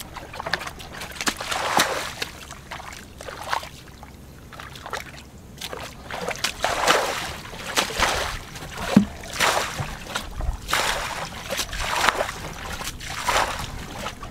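A plastic bucket scooping and emptying shallow muddy water, a splash and slosh every second or two as the water is bailed out.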